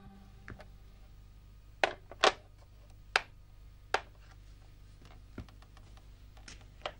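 A handful of short, sharp clicks and knocks at uneven intervals over faint room tone, the loudest a pair close together about two seconds in and single ones around three and four seconds in.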